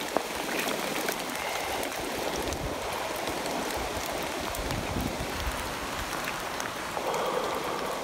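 Steady wash of water, with a few small ticks scattered through it.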